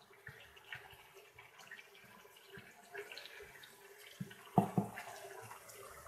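Oil sizzling and crackling faintly in a kazan as chopped onion and carrot are dropped in by hand onto frying meat. There are two louder thuds in quick succession a little past four and a half seconds in.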